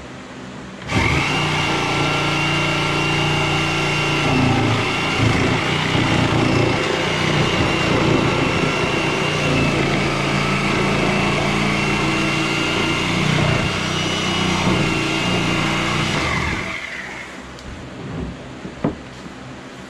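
A power tool's motor switches on about a second in and runs steadily with a whine, then winds down about three seconds before the end.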